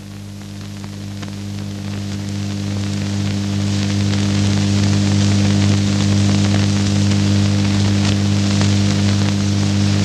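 Film soundtrack: a steady low electronic drone under a crackling, rain-like hiss that swells over the first four seconds.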